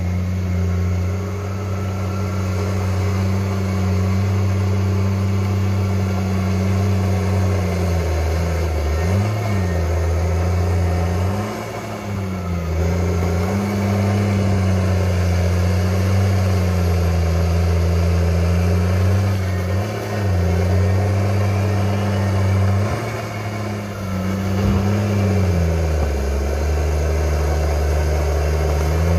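Crawler bulldozer's diesel engine running steadily while it pushes earth, roots and stumps with its blade. Its pitch dips and recovers several times as the load comes and goes.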